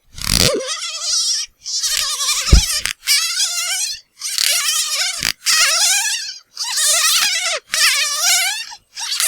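Squeaky dog toy squeezed over and over, about once a second, each squeeze giving a squeal of about a second whose pitch wavers rapidly.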